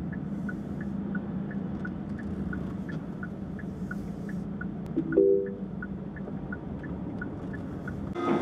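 A Hyundai Sonata taxi's turn-signal indicator ticks steadily at about three to four clicks a second, the ticks alternating slightly in pitch, over the low hum of the car running, heard from inside the cabin. About five seconds in there is a brief tone.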